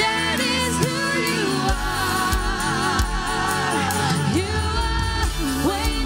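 Contemporary worship song: a singing voice with vibrato over a steady drum beat and bass.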